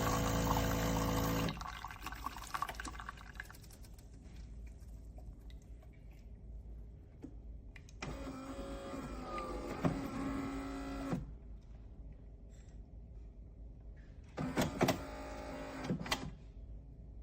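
Philips 3300 Series espresso machine's pump running with a steady hum and cutting off about a second and a half in, followed by quieter liquid and handling sounds, with two louder stretches later on.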